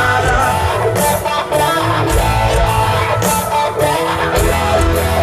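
Live country-rock band playing an instrumental stretch between vocal lines, led by strummed electric guitars over bass and drums.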